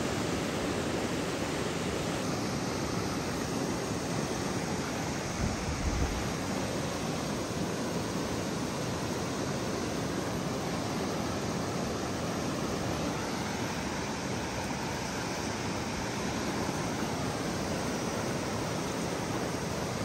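River water rushing steadily, with a brief low bump about six seconds in.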